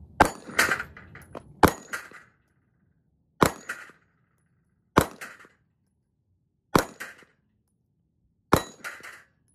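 Six slow, spaced shots from a Sig Sauer P938 Legion 9mm pistol firing 115 gr FMJ. Each shot is followed a fraction of a second later by the clang of a steel plate target being hit and knocked down.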